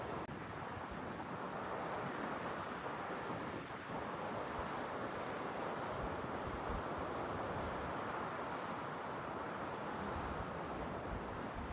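Steady rush of blizzard wind, with gusts buffeting the microphone in irregular low thumps.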